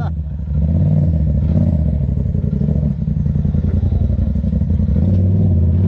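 Side-by-side UTV engine running at low, fairly steady revs, dipping briefly at the start and picking back up about half a second in.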